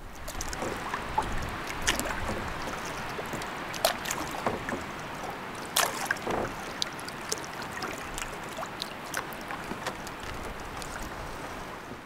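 Water lapping and splashing around a canoe on the move, with many sharp, irregular drips and splashes over a steady wash of water.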